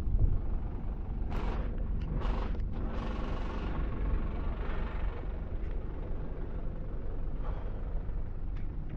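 Street traffic: a steady low rumble of vehicles, with a few short hissing bursts and a longer hiss between about one and four seconds in.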